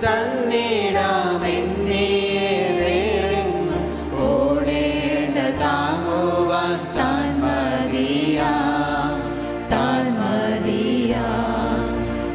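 A small group of singers sings a Christian hymn in long, held phrases over instrumental accompaniment with a steady bass line.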